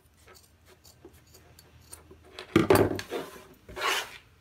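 Faint snips of fabric shears trimming threads, then the metal shears set down on a wooden tabletop with a loud clatter about two and a half seconds in, followed by a short rustle of flannel fabric being moved across the table.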